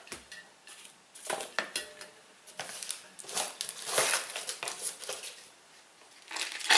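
Products being handled in a box: a series of short clinks and knocks of metal cans and a tin being set down and lifted out, with packaging rustling between them.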